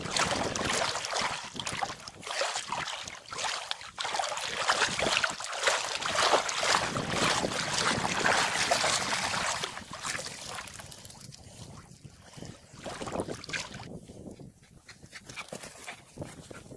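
Water splashing and sloshing as a Siberian husky swims and then wades through shallow river water. The splashing dies down about ten seconds in.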